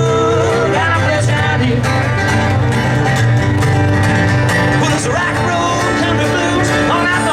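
Bluegrass-style string music with plucked guitar and banjo over steady bass notes, with held and sliding melody notes.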